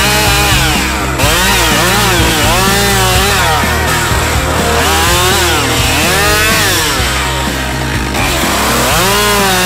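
Husqvarna 572 XP, a 70cc two-stroke professional chainsaw, revving up and down again and again, about once a second, as it cuts branches off a felled birch.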